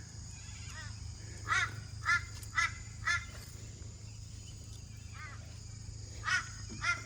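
A bird calling repeatedly outdoors: short, harsh, honking calls about half a second apart, four in a row in the first half and another run starting near the end.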